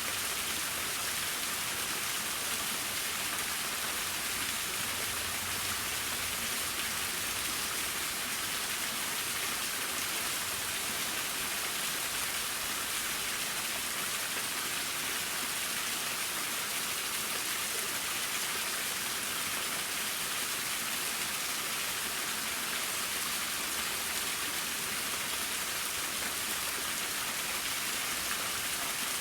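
Waterfall: falling water splashing in a steady, even hiss with no breaks.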